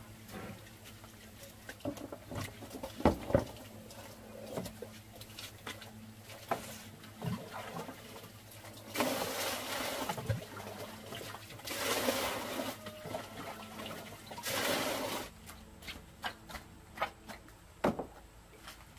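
Water being scooped and poured into a plastic basin, in three splashing pours of about a second each, with scattered knocks of plastic tubs and basins being handled before them.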